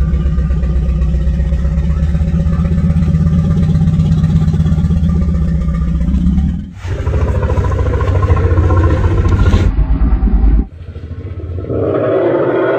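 Synthetic Tyrannosaurus rex roars made from elephant and tiger recordings slowed down and lowered in pitch. A long, deep rumbling roar breaks off about seven seconds in, a second roar lasts about four seconds, and a brighter, higher-pitched roar starts near the end.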